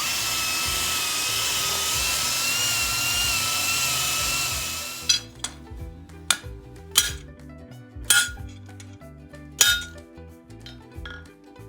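A power tool runs on steel with a steady high whine for about five seconds, then stops. Several sharp metal clinks and knocks follow, spaced a second or so apart.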